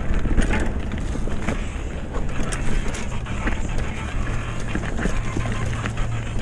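Retro Norco Bush Pilot mountain bike rolling over a dirt trail: tyre noise with scattered clicks and rattles from the bike, over a steady low rumble of wind on the microphone.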